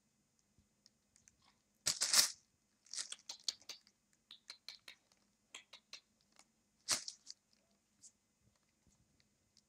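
Bedding rustling and crinkling as puppies shift about on it. The sound comes in short, crisp bursts, loudest about two seconds in and again near seven seconds, with a run of quick clicks in between.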